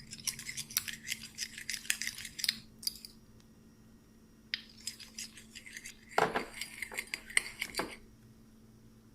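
A spoon clinking against a bowl while a soy and oyster sauce mixture is stirred. There are two spells of rapid clinking: one for about three seconds, then, after a pause, another for about two seconds near the end.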